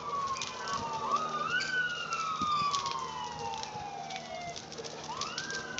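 Emergency vehicle siren wailing, rising quickly and falling away slowly, with new rises about a second in and near the end. Scattered sharp crackles sound under it.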